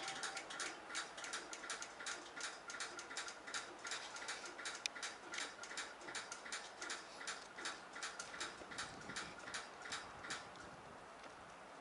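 Freight car wheels clicking steadily over rail joints as a slow train of covered hoppers rolls by, about three or four clicks a second. The clicks fade out near the end.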